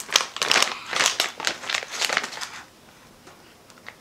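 Crinkling of a plastic potato-chip bag (Koikeya Karamucho) as it is pulled open and handled: a quick run of rustles that stops about two and a half seconds in, followed by a few faint clicks.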